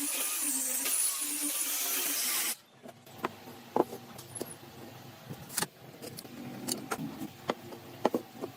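A power tool runs with a high whine and hiss, then cuts off suddenly about two and a half seconds in. Scattered light clicks and knocks follow, like tools and workpieces being handled.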